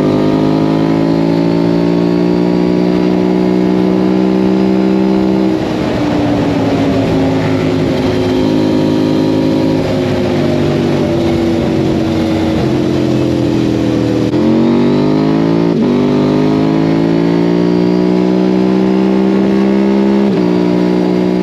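Quad with a swapped-in KTM 790 Duke parallel-twin engine running hard under load, held at a steady pitch for several seconds at a time. Its pitch drops about six seconds in and jumps back up about fourteen seconds in.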